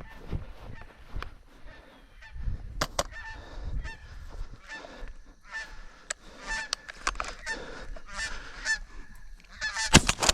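A flock of geese honking repeatedly. Near the end comes a single loud shotgun blast, echoing away.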